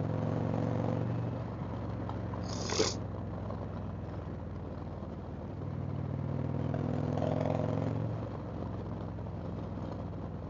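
Indian Chieftain's V-twin engine running on the move, easing off about two seconds in, then growing louder again around six seconds in before easing off once more. A brief hiss about two and a half seconds in.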